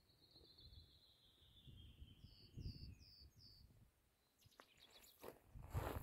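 A songbird singing faintly: one long whistle sliding down in pitch, then four short high notes in quick succession. Near the end come a few crunching footsteps on rocky ground.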